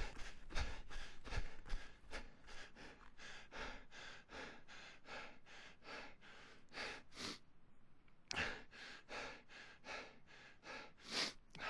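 A person breathing hard from running: quick, even breaths, about three a second. A short pause a little past halfway is followed by slower, heavier breaths near the end.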